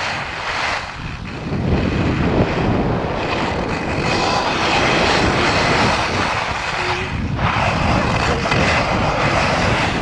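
Wind buffeting an action camera's microphone during a downhill ski run, with the hiss and scrape of skis sliding over packed snow, swelling and easing a few times as the skier turns.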